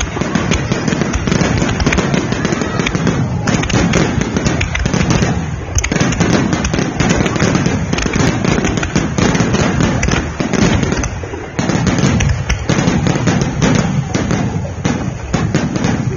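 Fireworks finale: shells bursting in a dense, nearly continuous barrage of booms and crackles, with a few short lulls.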